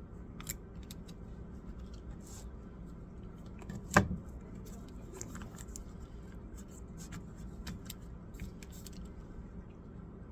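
Small scattered clicks and taps of laptop parts and tools being handled, with one sharp, louder knock about four seconds in, over a steady low hum.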